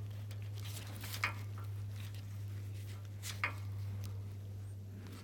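A few light clicks and rustles, like wires of an automotive wire harness being handled, over a steady low hum.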